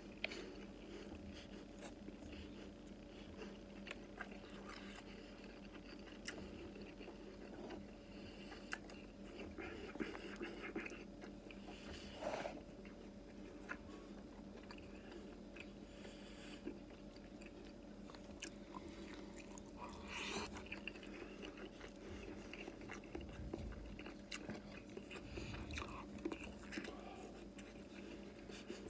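A person eating rice and Japanese rolled omelette (tamagoyaki) with chopsticks: soft chewing and mouth sounds with scattered small clicks, over a faint steady hum.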